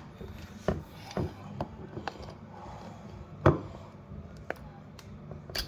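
Vice grips (locking pliers) clamped onto a stuck mayonnaise lid and worked to twist it loose: a string of sharp clicks and knocks, about seven over several seconds, the loudest about three and a half seconds in.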